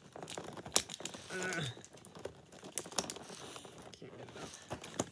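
Irregular small plastic clicks and taps as a tiny miniature toy drink and its packaging are handled and worked open by fingers, with a brief murmur of a voice about a second and a half in.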